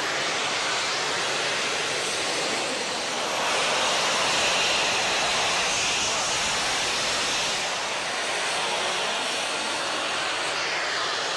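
Gravity jet suit's small jet turbines running with a steady high hiss, growing louder for a few seconds in the middle.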